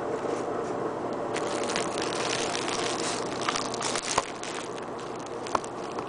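Steady hum and rushing of an air conditioner and a fan running together, with a faint crackling through the middle and two sharp clicks, about four seconds in and again near the end.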